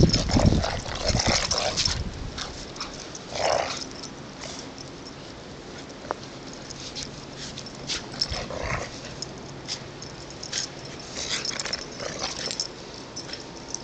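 Two dogs, a black Labrador and a pit bull mix, play-fighting in deep snow, making a few short dog sounds among small crackling noises.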